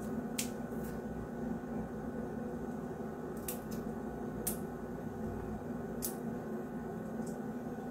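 Thin outer skins being peeled off jackfruit seeds with a knife: scattered faint, light clicks and crackles. A steady low hum runs underneath.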